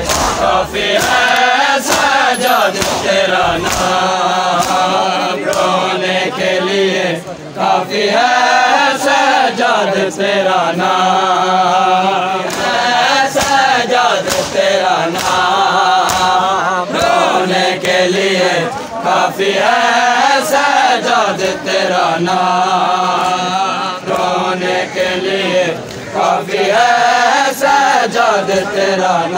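A crowd of men chanting a Shia noha in unison, a mourning lament, with hands slapping on bare chests (matam) in a steady beat under the singing.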